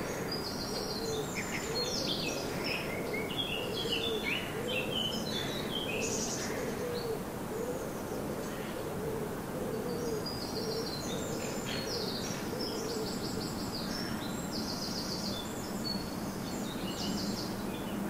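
Garden birds singing: two bouts of high, quick, chirping song, with a low hooting call repeated over and over beneath them for the first ten seconds or so. A low steady hum comes in near the end.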